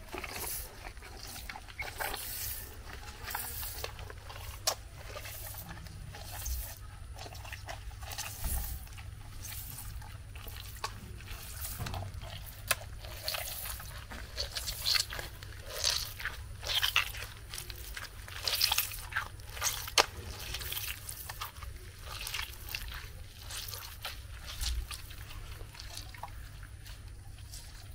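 Orange and pineapple juice being handled: irregular splashes, drips and trickles with scattered scrapes and clicks, over a low steady hum.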